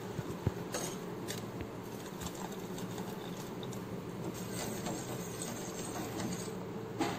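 Hibiscus petals simmering in water in a stainless steel pot, a ladle stirring and pouring the red liquid back in. A few light clinks of the ladle against the pot, one about half a second in and another near the end.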